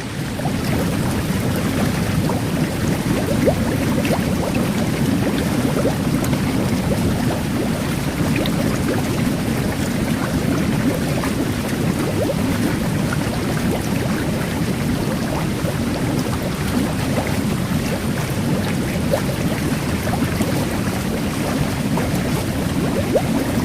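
Whirlpool jet bath churning water steadily, with the fine crackling fizz of carbonated-water microbubbles mixed in.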